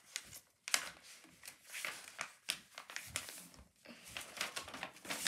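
A sheet of letter-size paper rustling and crinkling in short bursts as it is unfolded and pressed flat by hand.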